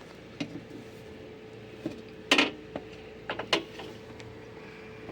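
Scattered sharp clicks and knocks of tools and metal parts being handled while a washing machine is taken apart. The loudest knock comes about halfway through, followed by a quick cluster of smaller clicks, over a faint steady hum.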